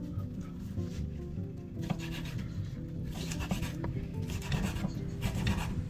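Knife cutting and scraping through raw steak on a cutting board in repeated rasping strokes, over soft background music.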